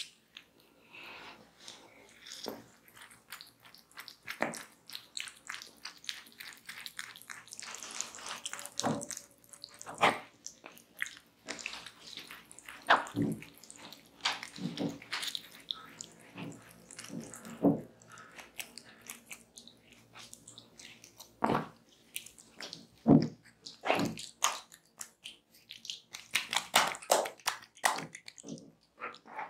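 Wet squishing and smacking of a watermelon slice and oiled hands rubbed over skin coated in fruit pulp, in irregular strokes.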